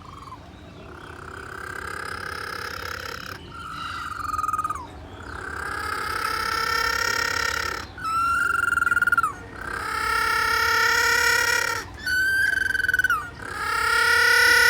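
A little penguin braying: a series of long, nasal, trumpet-like notes alternating with shorter notes that drop in pitch at the end, growing louder as the call sequence builds.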